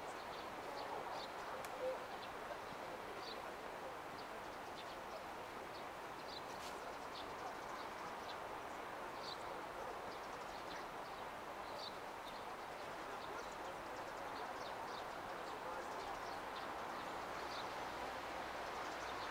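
Steady hum of outdoor city ambience, with short high chirps scattered every second or so.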